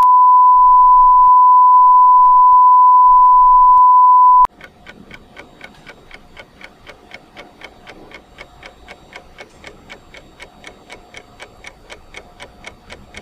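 A loud, steady, high single-pitch beep tone that cuts off abruptly after about four and a half seconds, followed by quieter, even clock ticking at about three ticks a second.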